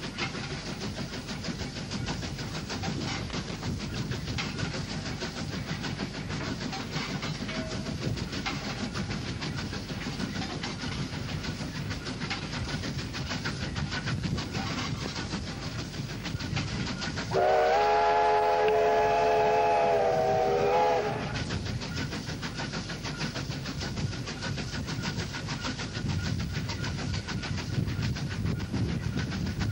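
Steam locomotive K160, a Victorian Railways K-class, running along the line with a steady rush of exhaust and wheel noise. Just past halfway it gives one long blast of its steam whistle, about four seconds, a chord of several tones, as it nears a level crossing.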